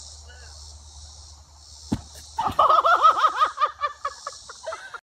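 A single thump about two seconds in as a person lands on a trampoline mat, then rapid high-pitched laughter in quick repeated bursts, with insects chirping steadily in the background.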